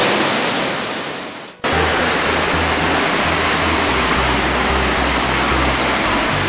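Rushing water from a gorge waterfall, fading out over the first second and a half and cutting off abruptly. It comes straight back with electronic dance music, a deep bass line changing every half second or so under the steady rush.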